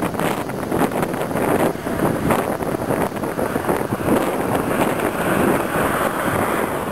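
Wind buffeting the camera's microphone: a loud, rushing noise that rises and falls in gusts.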